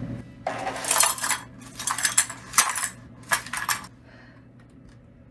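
Shards of broken window glass being swept up with a broom into a dustpan, clinking and scraping in four or five sharp bursts that stop a little before four seconds in.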